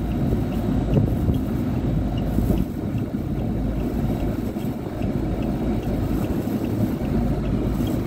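Steady low rumble of a running Carrier rooftop HVAC unit, with wind on the microphone.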